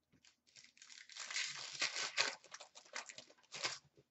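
Wrapper of an Upper Deck hockey card pack crinkling and tearing as the pack is ripped open by hand. The dense crackling builds over the first second and stops just before the end.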